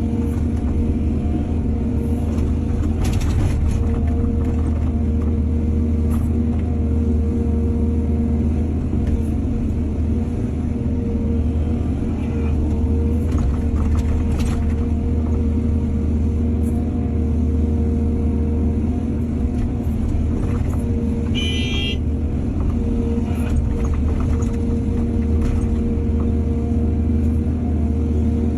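Excavator's diesel engine running steadily under load, with occasional faint knocks and a brief high-pitched squeal about three-quarters of the way through.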